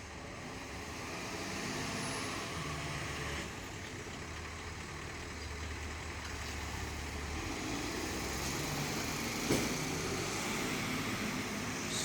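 Fire engine's engine running as the truck moves, with road noise and a short knock about nine and a half seconds in.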